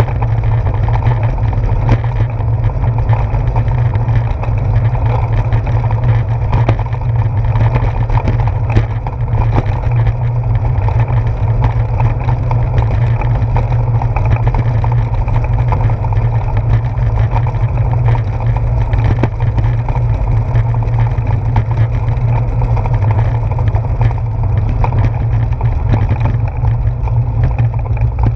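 Steady low rumble of wind and road vibration picked up by a handlebar-mounted GoPro as the bicycle rolls over wet pavement. Small ticks and rattles come through throughout.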